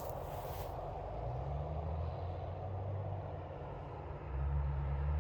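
Ute engine running while driving, with a short hiss at the start. The engine speeds up about a second and a half in, and again, louder, near the end.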